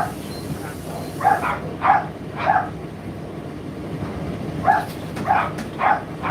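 A dog barking repeatedly in short runs, three barks about a second in and four more near the end, over a steady low hum.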